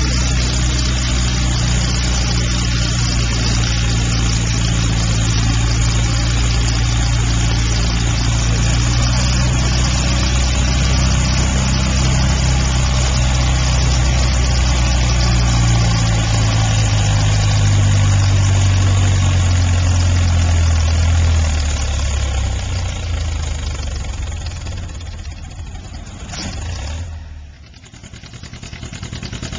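Antique tractor engine running hard under load as it pulls a weight-transfer sled, a steady low engine note that fades away after about twenty seconds. Near the end the sound drops out briefly, then another tractor engine comes in.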